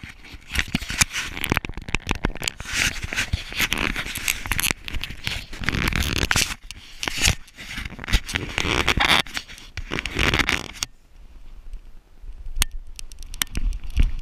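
Close, scratchy rubbing and scraping of dog fur and a hand against a harness-mounted GoPro Hero3 housing, in irregular bursts with small clicks. It stops about eleven seconds in, and a few sharp clicks follow.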